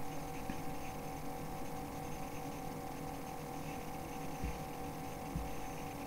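Steady electrical hum and room tone, with two faint thumps in the second half.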